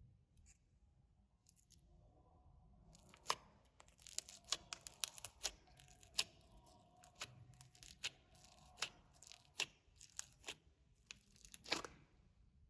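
Clear slime with glitter mixed in, being kneaded and stretched by hand: an irregular run of sharp, sticky pops and clicks. It starts about three seconds in and stops shortly before the end.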